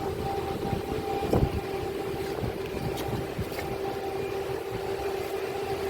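A machine running steadily with a constant hum, with a few faint ticks over it.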